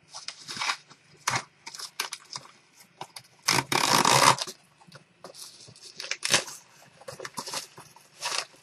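A mail envelope being torn open and its packaging handled: irregular crinkling, rustling and ripping, with one long loud tear about three and a half seconds in.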